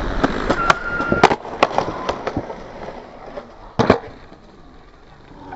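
Skateboard wheels rolling on concrete, broken by sharp clacks of the board. The loudest clack comes about four seconds in, and the rolling dies down toward the end.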